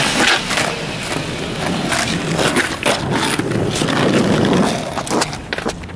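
Skateboard wheels rolling over rough asphalt, a continuous gritty rumble broken by many small sharp clicks and knocks; it fades somewhat near the end.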